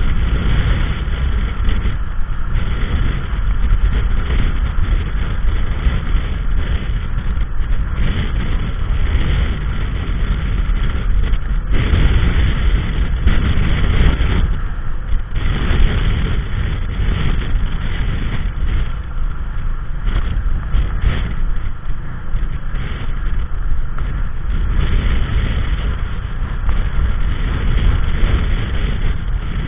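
Blizzard wind buffeting the microphone: a continuous, loud, uneven rumble that swells and eases in gusts.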